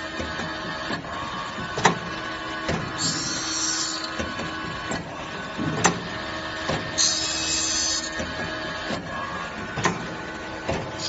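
Automatic saw-blade tooth grinding machine running through its cycle: a steady machine hum, a high hiss that comes back about every four seconds, and sharp clicks and knocks in between.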